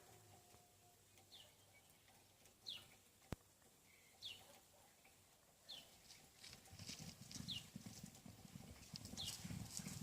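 Hoofbeats of a horse moving, starting a little past halfway and growing louder. A short high chirp that falls in pitch repeats about every one and a half seconds.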